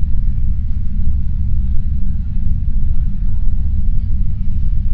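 Deep, steady low rumble laid in as a film sound-effect drone, with nothing higher-pitched above it.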